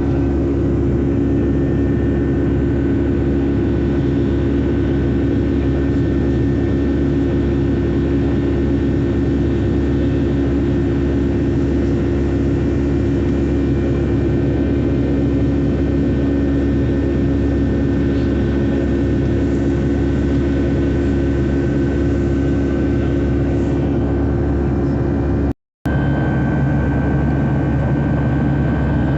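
Boeing 757-300 passenger cabin in flight: steady drone of the jet engines and rushing airflow, with a constant hum. Near the end the sound cuts out for a moment and comes back with a slightly different hum.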